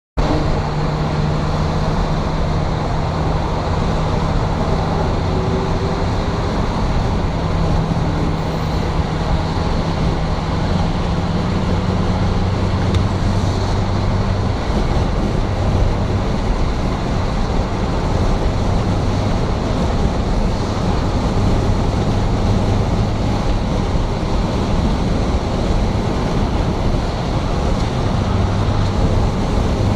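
Steady rushing noise of rain and wind, with a low engine hum from a vehicle that fades in and out.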